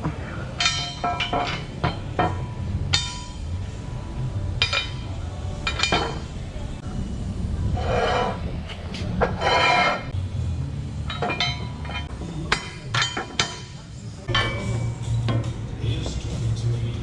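Steel track pads and their bolts being handled, irregular metallic clanks and knocks, some ringing briefly, over a low steady hum.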